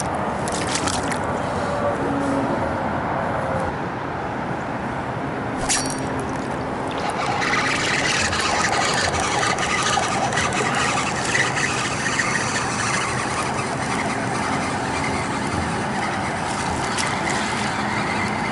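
Steady wind and water noise over open water, with a few sharp clicks near the start and a single sharp click about six seconds in.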